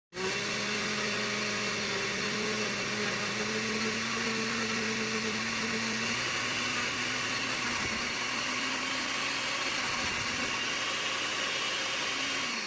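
Electric blender running steadily, pureeing apple for a marinade.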